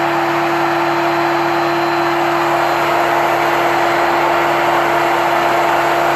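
A motor running at one steady speed on a home-built CNC machine, a constant whine over an even, loud whirr that does not change.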